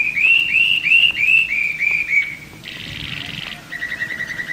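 Bird song: a run of clear, arched whistled notes, about three a second. About two and a half seconds in it turns to a short rough buzzy call, then a quick run of rapid chirps.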